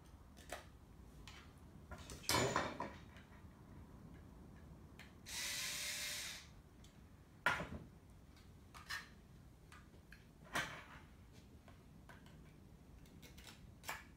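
Steel guide rods being worked into a 3D-printed plastic x-axis part: scattered clicks and knocks, a louder rattle about two seconds in, and a scraping slide lasting about a second near the middle.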